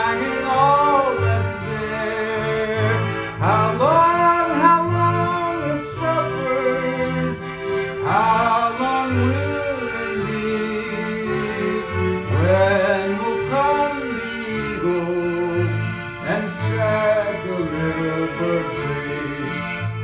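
Roland digital accordion playing the tune over bass-and-chord button accompaniment, with a man's voice coming in over it several times in long, wavering sung phrases.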